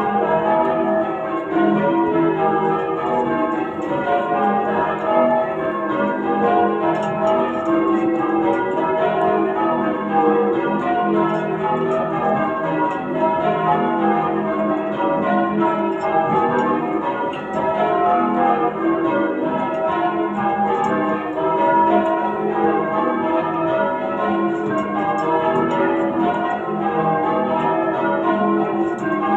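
Change ringing on a ring of eight church bells tuned to E, with a 19 cwt tenor, cast in 1739, 1895 and 1914 by Thomas Bilbie and Llewellins & James. The bells strike one after another in an unbroken, steady rhythm of changes.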